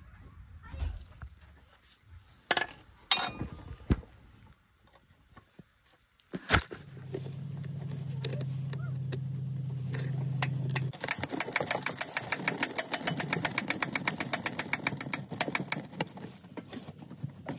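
Ratchet wrench clicking fast and evenly for about five seconds as the idler pulley bolt is turned, after a few knocks of metal parts being handled. Before the clicking, a steady low hum runs for about four seconds.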